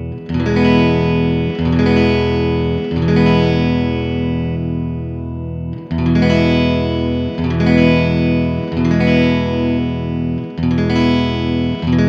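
Electric guitar chords strummed through a Strymon Flint's 60s-mode reverb. The phrase is played first through the version 2 pedal, then again through the version 1, the strums a second or so apart with one chord left ringing. To the player, the V2 sounds a little more trebly.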